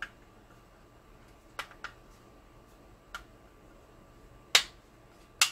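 Plastic clicks and snaps as a part is pressed back onto a vehicle ignition security module: a few light clicks, then two loud sharp snaps near the end.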